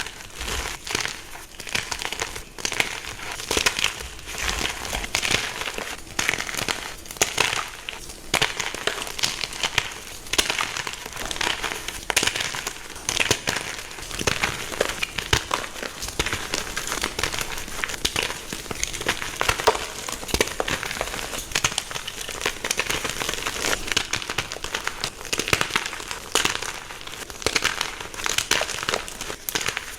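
Blocks of soft gym chalk being crushed and crumbled, a dense run of dry crunches and crackles.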